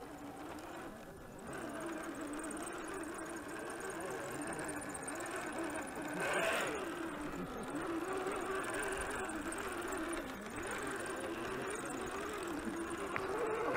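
Electric motor and gearbox of a radio-controlled scale crawler truck whining as it crawls over loose rocks, the pitch rising and falling with the throttle. The whine climbs sharply and drops back about halfway through.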